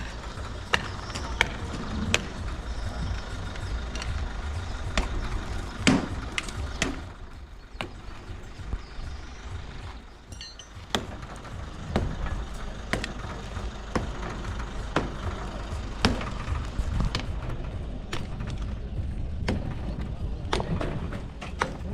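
Irregular sharp knocks and taps from work on a building site, some louder than others, over a steady low rumble. They thin out for a few seconds in the middle.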